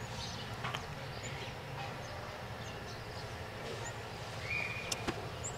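Outdoor ambience: a steady low background rumble with faint bird calls. A short, high, even whistle sounds about four and a half seconds in.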